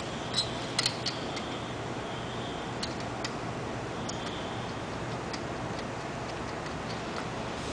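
Scattered light metallic clicks at irregular intervals as nuts are handled and threaded by hand onto the exhaust bracket studs, over a low steady hum.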